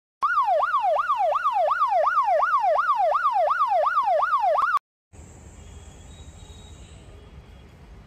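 Ambulance siren in a fast up-and-down wail, about three sweeps a second, cutting off abruptly about five seconds in. After it comes a quieter low traffic rumble.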